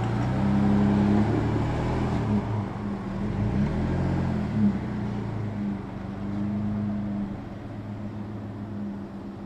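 Nissan Frontier PRO-4X pickup's V6 engine running on the trail, its pitch dipping and rising a few times in the middle as the throttle changes, then fading away toward the end.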